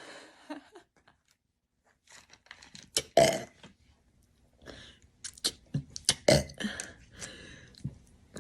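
A woman burping: short, rough burps, the loudest about three seconds in and another just after six seconds, with small clicks in between.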